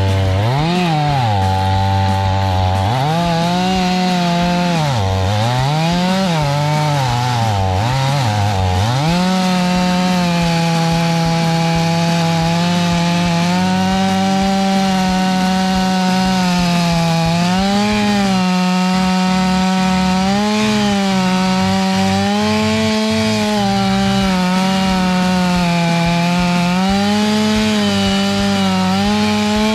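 Chainsaw revving up and down several times over the first nine seconds or so, then held at high speed as it cuts steadily through a large log, its pitch dipping slightly now and then under load.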